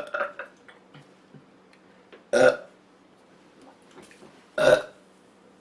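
A girl burping from soda: short, loud burps, one right at the start with a few small ones after it, then two more about two seconds apart.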